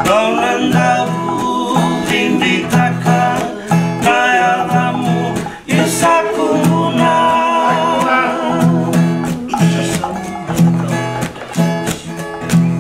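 Men singing a song in Fijian to a strummed acoustic guitar, with a steady pulse of low bass notes under the voices.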